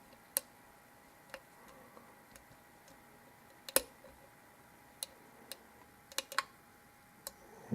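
Lock pick working the pins of a Zeiss Ikon euro cylinder during single-pin picking: scattered sharp metallic clicks, a second or more apart at first and coming in quick pairs near the end.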